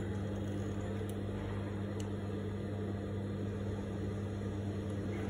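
Steady low hum from an idling Juki industrial sewing machine's motor, left running while the fabric is positioned under the foot and no stitching is done.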